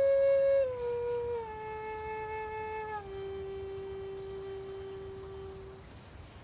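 Flute playing a slow melody of held notes that step downward in pitch, the last note held long. A high steady tone sounds over it from about four seconds in until near the end.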